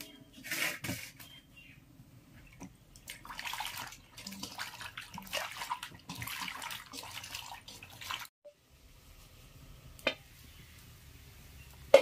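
Hands swishing and rubbing cauliflower florets in water in a stainless steel bowl, splashing in several bursts. It stops suddenly about eight seconds in. A faint low steady background follows, with a sharp click about ten seconds in and a loud knock at the very end.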